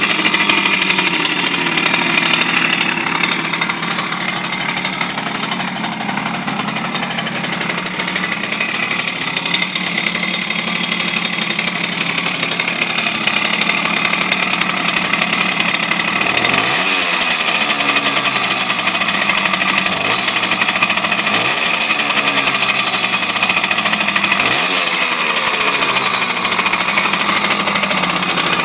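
Simson moped's single-cylinder two-stroke engine running, blipped up in revs about four times in the second half. The owner reports screeching, scraping and vibration from it as the revs fall.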